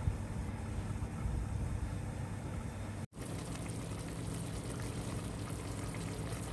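Chicken wings simmering in soy-sauce adobo sauce, the liquid bubbling and sizzling as it reduces. The sound drops out for an instant about three seconds in, then carries on with more crackle.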